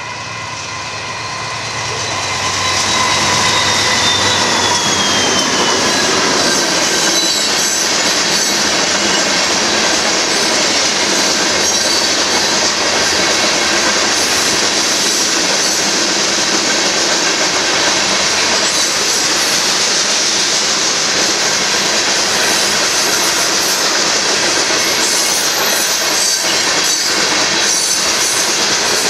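Freight train of covered hopper cars rolling past at a grade crossing: a loud, steady rumble and rattle of steel wheels on the rails. It swells over the first three seconds as the train arrives, with a high wheel squeal sliding down in pitch during the first few seconds of the passage.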